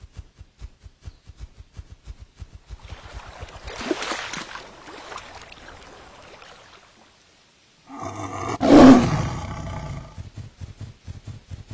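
A lion roar, one long rough roar about two-thirds of the way in and the loudest sound here. Before it come quick soft thumps, about five a second, and a rising and falling rushing noise.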